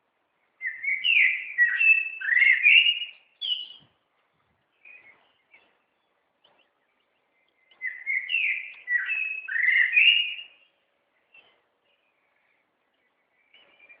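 A songbird singing two warbling phrases of about three seconds each, a few seconds apart, with a few short chirps between and after them.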